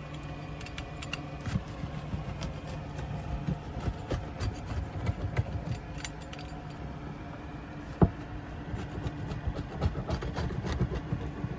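Light clinks and rattles of cooking utensils and dishes being handled over a steady low hum, with one sharp click about eight seconds in.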